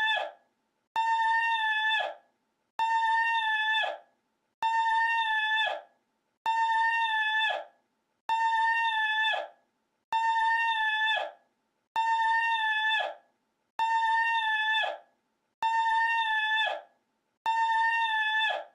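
The same short, high-pitched call played on a loop: a level, held cry that drops in pitch at its end, about one each 1.8 seconds with silence between.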